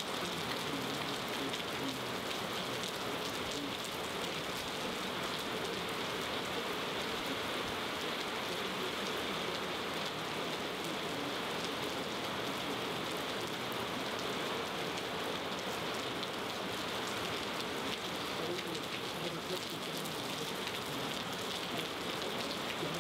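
Steady rain falling onto standing water on pavement, with many small splashes of single drops.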